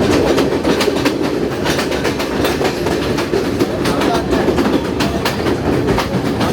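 Passenger train carriage running along the track: a steady low rumble with a quick, uneven run of wheel clicks over the rails.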